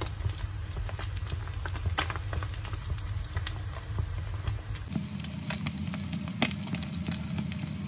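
Whole fish frying in hot oil in a nonstick frying pan: a steady sizzle with many sharp pops and crackles.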